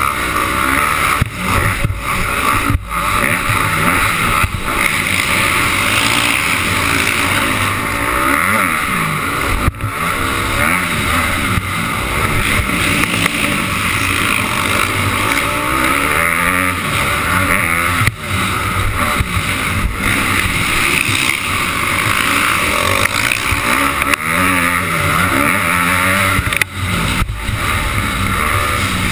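Dirt bike engine revving up and down again and again as the bike races around a dirt track, with wind noise on the microphone. A few brief, sudden drops in loudness break the engine sound.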